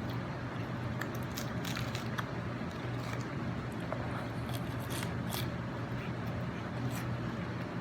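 Close-miked chewing and crunching of food: irregular crisp crackles and squishy bites over a steady low hum.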